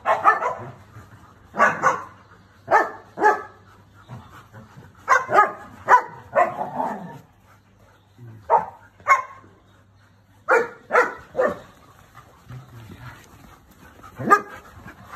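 Standard poodles barking in play: short sharp barks, mostly in quick pairs or threes, with pauses of a second or more between the groups.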